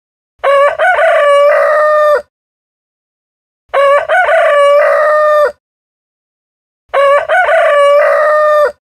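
Rooster crowing three times, about three seconds apart. Each cock-a-doodle-doo opens with a few short notes and ends in a long held note. The crows sound alike and are separated by complete silence.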